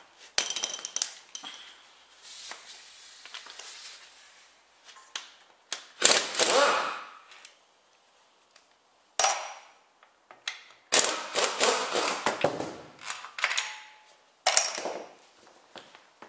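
Metal tools and parts clanking and clattering: scattered sharp knocks and rattles, with a longer run of clatter past the middle.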